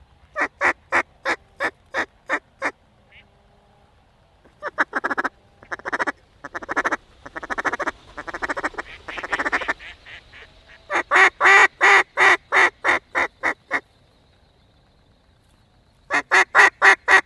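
Mallard duck call blown in runs of evenly spaced quacks, about four a second, with a rapid feed-call chatter in the middle.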